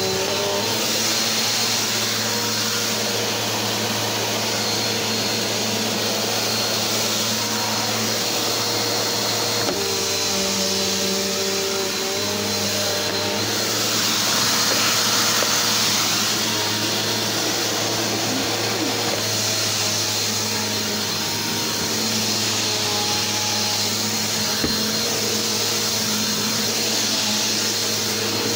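Vacuum cleaner running steadily over carpet, its belt-driven brush roll spinning. The motor hum shifts slightly in pitch and loudness now and then as it is worked across the floor.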